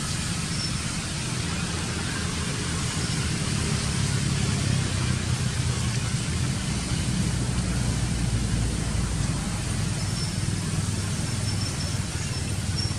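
Steady outdoor background noise with a low rumble and an even hiss, with no single distinct sound standing out.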